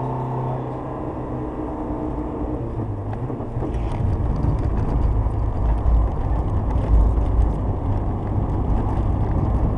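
Renault Kangoo's 64 PS diesel engine running under way, heard inside the cabin with road and tyre noise. Its note shifts about half a second in. From about three and a half seconds the sound grows louder and rougher, with a low rumble and scattered knocks.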